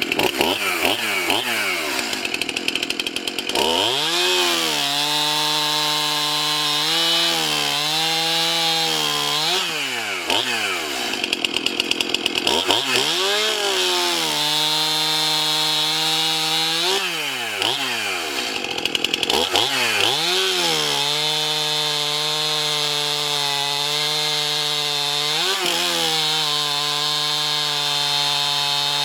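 Stihl MS 271 chainsaw, a 50.5 cc two-stroke, cutting through a log with an 18-inch full-comp chain: it revs up to full throttle and holds there in the cut, dropping back and rising again several times, with a long steady cut near the end.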